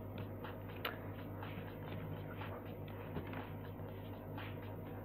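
Low, steady electrical hum, with faint, irregular soft rustles and taps over it.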